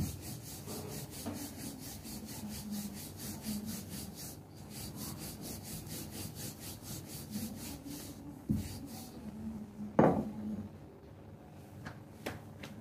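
Rolling pin rolling paratha dough back and forth on a stone counter: a steady, rhythmic rubbing. A knock comes about eight and a half seconds in, and a louder thump about ten seconds in.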